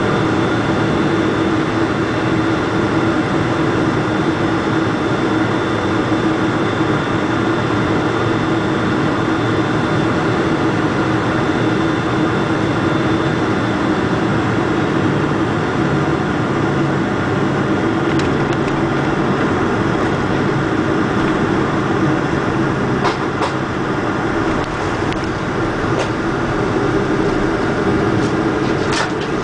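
Cabin noise of a Boeing 747-400 landing: steady engine and airflow noise with a high whine that fades about halfway through, as the jet settles onto the runway. It carries on as rumbling on the runway during the rollout, with a few sharp knocks and rattles in the second half.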